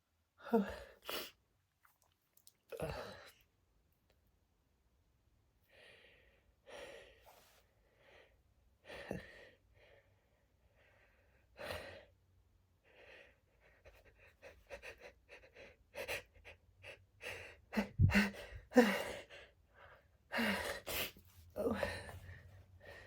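A woman's stuck sneeze building up as she tickles her nose with a clothing tag: short gasping in-breaths and sniffs with pauses between them. About two-thirds through comes a quick run of short sniffs, and near the end a few louder, sudden bursts of breath.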